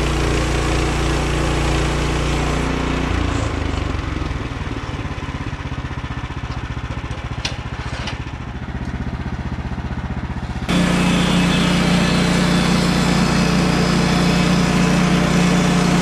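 Small engine running steadily, then settling to a lower, throbbing idle about three seconds in, with two sharp knocks near the middle. About eleven seconds in, the sound turns abruptly to the louder, steady running of the Woodland Mills HM130MAX portable bandsaw mill's engine, heard close up.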